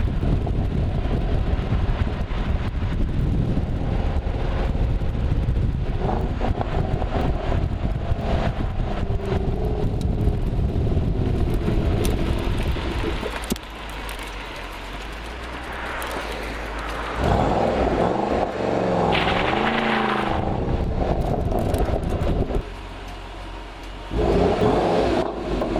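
Ford Mustang Shelby GT500's supercharged V8 engine and exhaust while driving, over road rumble, its pitch wavering as speed changes. It eases off and goes quieter about halfway through, then pulls hard twice: once about two-thirds in, and again near the end.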